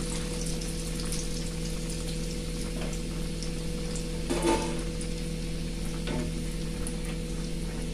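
Breadcrumb-coated ice cream ball deep-frying in hot oil in a kadai: a steady sizzling hiss with fine crackling. About halfway through there is a short metal clink.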